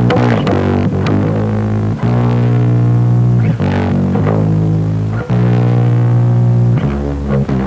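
Music: sustained, effects-laden guitar and bass notes changing every second or two.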